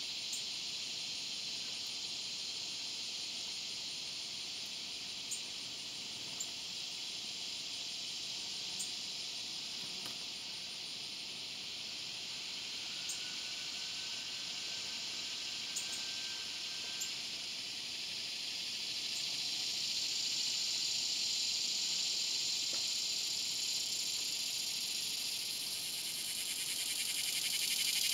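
Swamp cicada (Neotibicen tibicen) calling: a steady high buzz that swells about twenty seconds in and grows louder again near the end, turning into a pulsing rattle.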